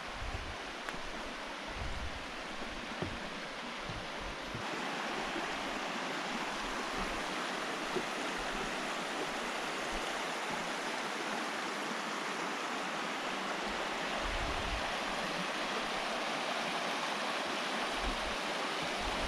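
Shallow, rocky river flowing over stones: a steady rushing of water that turns louder and brighter about four and a half seconds in.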